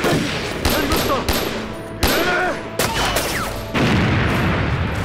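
Film battle sound effects: a string of gunshots, then an explosion going off about three-quarters of the way in, its heavy rumble carrying on to the end.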